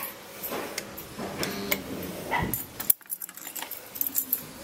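A bunch of keys jangling and clicking against a security door's lock as the door is unlocked, with a dog barking faintly now and then behind it.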